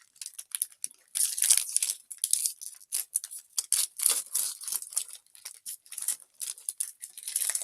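A snack wrapper being torn open and handled: a rapid, irregular, high crackle.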